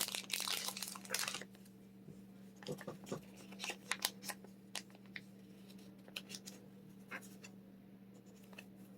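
Plastic card sleeves and their packaging rustling for about a second and a half, then scattered light taps and clicks of trading cards and sleeves being handled.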